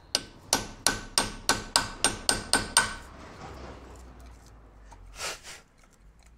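A hammer strikes a screwdriver used as a chisel about ten times in quick succession, roughly four blows a second, each hit ringing metallically. The blows drive into the rusted-in, seized ABS wheel-speed sensor of a VW T5 to break its remains out of the wheel hub carrier. A brief soft rustle follows about five seconds in.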